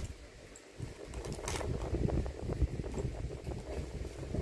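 Soft handling and rustling noises close to the microphone, with one sharp click about a second and a half in.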